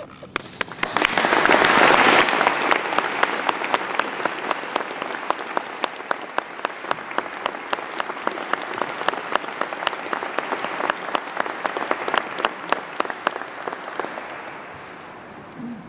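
Audience applauding at the close of a choral piece, swelling within the first two seconds, then carrying on steadily with many separate sharp claps before fading away near the end.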